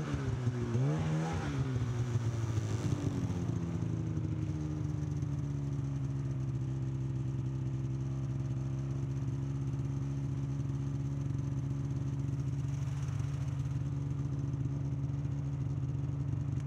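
Snowmobile engine revving unevenly as the sled creeps to a stop, then settling into a steady idle about three seconds in.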